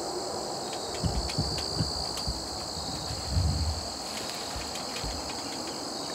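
Steady chorus of insects, a continuous high buzz at two pitches, with a few low thumps and rumbles about a second in and again past three seconds.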